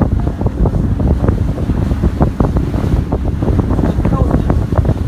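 Wind buffeting the microphone aboard a small fishing boat running fast over the sea, over the rush of water, with many short knocks scattered irregularly through it.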